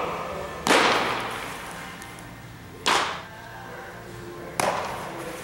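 Baseballs smacking into a catcher's mitt three times, about two seconds apart, each sharp pop echoing briefly in a large hall.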